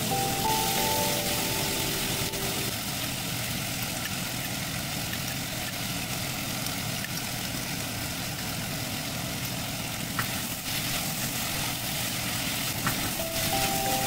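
Chicken and green pepper sizzling in a nonstick frying pan as they are stirred with a plastic spatula: a steady hiss, with two sharp clicks of the spatula against the pan late on. Soft background music plays for the first few seconds and returns near the end.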